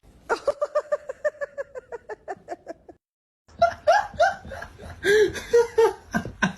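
A person laughing in a rapid run of short bursts that slowly fall in pitch; after a brief silence about three seconds in, more laughter and voice sounds.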